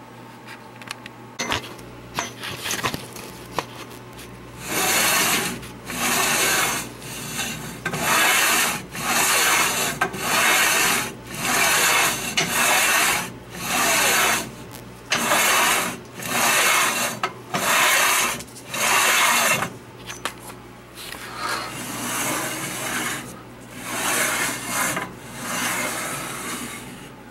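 The metal slide of a homemade lathe rifling attachment pushed back and forth by hand along its sine bar guide: a rasping metal-on-metal slide with each stroke, about one stroke a second, starting a few seconds in and growing softer over the last several strokes.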